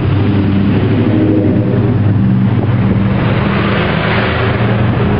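A motor vehicle engine running steadily: an even low hum, with a hiss that grows in the last couple of seconds.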